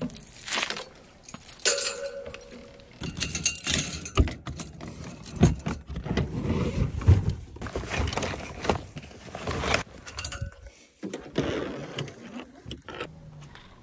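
A bunch of keys jangling and clinking at the lock of a plastic rooftop cargo box as it is unlocked, among irregular knocks, clunks and rustles of the box and a backpack being handled.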